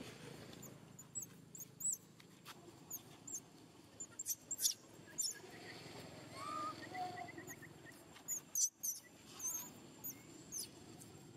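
Baby macaque giving short, high-pitched squeaks and chirps, scattered and irregular, with a quick run of chirps about six and a half seconds in.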